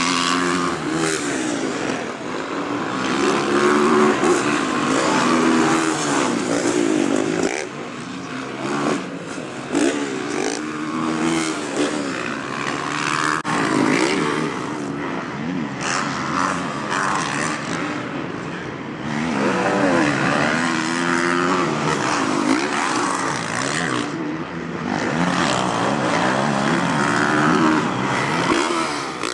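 Four-stroke motocross race bikes revving hard and changing gear as they race past on the track, the engine pitch climbing and dropping in several loud waves.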